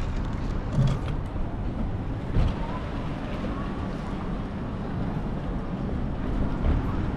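Wind rumbling over the camera microphone during a bicycle ride, with a thump about a second in and another at about two and a half seconds.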